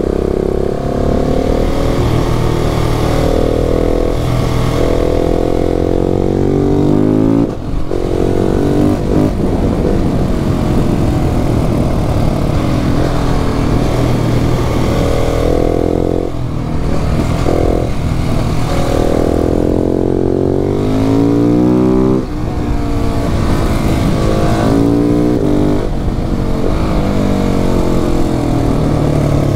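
KTM 690 SMC-R supermoto's single-cylinder engine ridden hard. It revs up with rising pitch again and again, and the pitch drops sharply between runs as the rider shifts or rolls off the throttle, three or four times.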